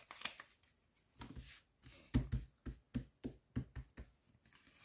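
Faint taps and knocks of a deck of playing cards being handled, with a quick run of short knocks in the second half.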